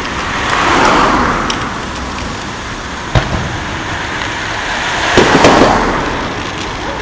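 Two cars pass on the road, one about a second in and one about five seconds in, each swelling and fading. A single firework bang comes at about three seconds.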